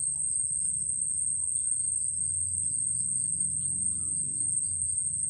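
A steady high-pitched whine without a break, over a low, uneven rumble.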